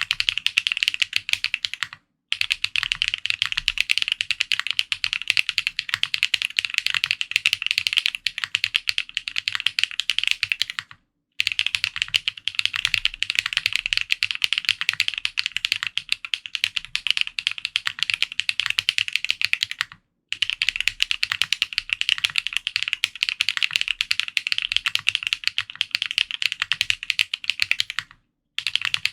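Fast typing on a Matrix Corsa custom mechanical keyboard with lubed Yok Holy Panda tactile switches, GMK keycaps and an aluminium plate: a dense, continuous stream of key clacks. It stops dead for a moment four times, about two, eleven and twenty seconds in, and again near the end.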